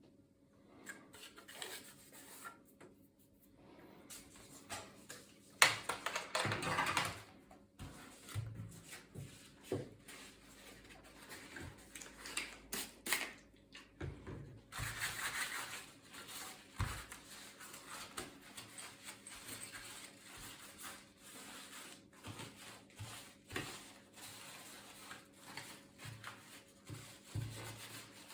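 Hand work on a laptop: scattered clicks, taps and rubbing of parts and tools, with a sharp knock and a louder noisy stretch about six seconds in and another about fifteen seconds in.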